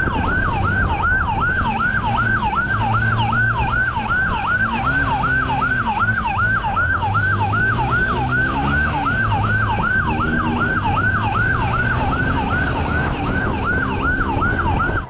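Police motorcycle siren on a fast yelp, sweeping up and down about three times a second without a break. A motorcycle engine runs underneath, its pitch rising and falling.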